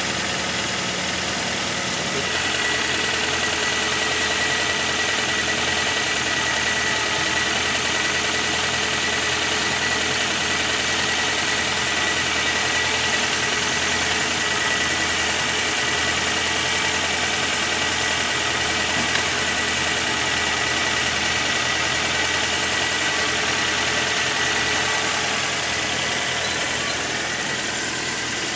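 Toyota Corolla engine idling steadily. A thin steady whine and slightly louder running come in about two seconds in and drop away near the end.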